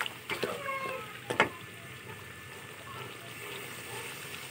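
A spoon stirring beef, tomatoes and freshly added yogurt in a cooking pot, knocking and scraping against the pot a few times in the first second and a half, the loudest knock about a second and a half in. After that comes a steady, low sizzle of the wet masala frying.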